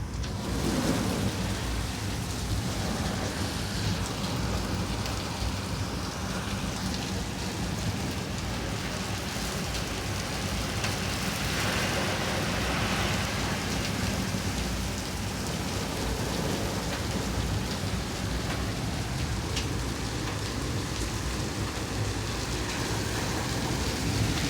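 Hail and heavy rain pelting down: a steady, dense patter of hits with a few sharper clicks standing out.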